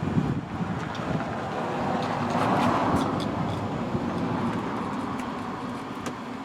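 Scraping and rustling of a thin luan plywood panel being shifted into place against the camper's ceiling frame, swelling about halfway through, with a few light clicks.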